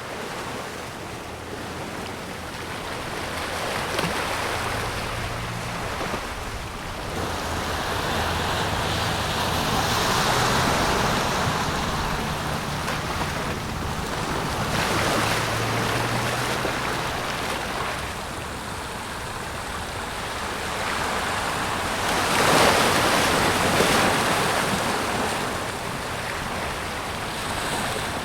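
Gentle surf on a calm sea: small waves washing in and drawing back, a steady rush of water that swells and eases every few seconds, loudest a little past the middle. A faint low hum sits underneath for a while in the first half.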